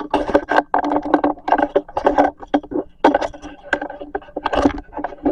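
Loud, close rattling and clattering of objects being handled, a quick run of knocks and scrapes.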